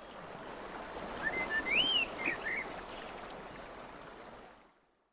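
Ambience of flowing water with a few bird chirps, the clearest a rising-and-falling whistle about two seconds in. It fades out near the end.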